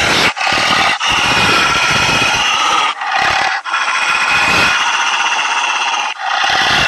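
Wolves howling: long, held, overlapping howls at several pitches, broken by short gaps.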